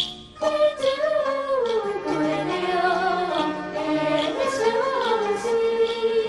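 Taiwanese opera (gezaixi) music: after a sharp percussion hit at the very start, a melody line with wavering, gliding pitch comes in about half a second later over low sustained bass notes, with a light percussion tick about once a second.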